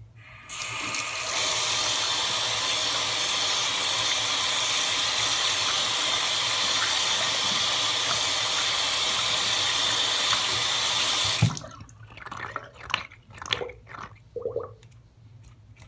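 Bathroom sink faucet running, water splashing over hands and into the basin as soap lather is rinsed off. The flow builds up over about a second after the tap is opened, runs steadily, then stops abruptly about three-quarters of the way through. A few short splashes and drips follow.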